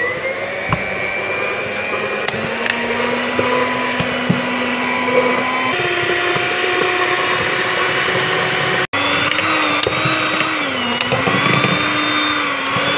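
Electric mixer with two dough hooks kneading a stiff bread dough: a steady motor whine whose pitch dips and recovers as the heavy dough loads the hooks.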